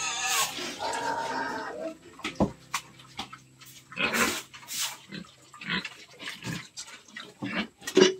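Pigs feeding at a concrete trough: irregular wet slurping and smacking of feed, with a few grunts and a sharp knock near the end.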